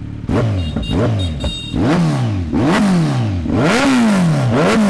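Kawasaki Z900's inline-four engine revved in a series of quick throttle blips through an aftermarket slip-on exhaust, loud, the pitch shooting up and dropping back about five or six times.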